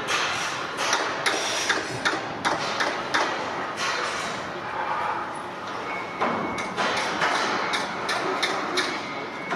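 Irregular sharp knocks, a few a second, like hammering, over a steady background hum.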